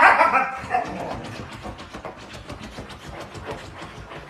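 A husky vocalizes loudly and briefly as the clip begins, then a run of quick, fast-repeating clicks follows and slowly fades.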